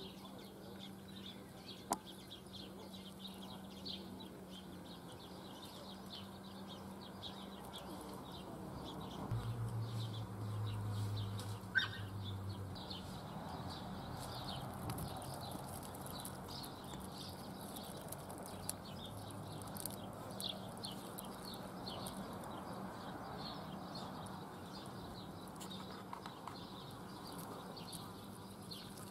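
Outdoor garden ambience: birds chirping and calling throughout, possibly with fowl clucking in the background. A low hum swells for about three seconds starting about nine seconds in, and there are a couple of sharp ticks.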